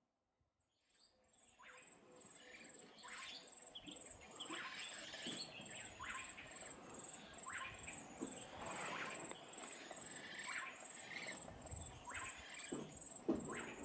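A steady, rapidly pulsing high insect trill, starting about a second in, over irregular splashing and sloshing of water as elephants bathe, with a louder splash near the end.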